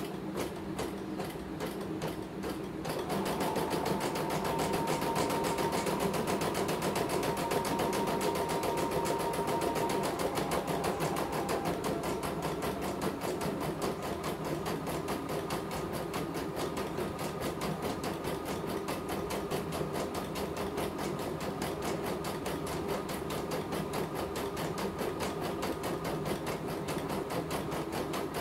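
CNY portable computerized embroidery machine stitching a design, its needle clattering at a rapid, even rhythm. It comes up to full speed and gets louder about three seconds in, then runs on steadily without stopping, as in a test run after servicing.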